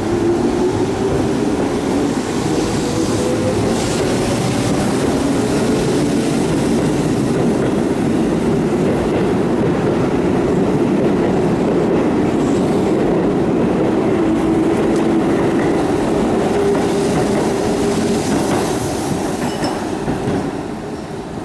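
Keihan 6000-series electric train pulling out of the station: its traction motors whine upward in pitch as it accelerates, then the cars run past with steady wheel-on-rail noise that fades near the end.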